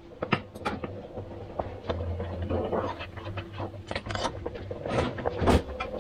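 Thick mung-dal pradhaman (payasam) bubbling as it simmers in a non-stick pan, with irregular pops of bursting bubbles and the spatula scraping and knocking against the pan as it is stirred. A steady low hum runs underneath.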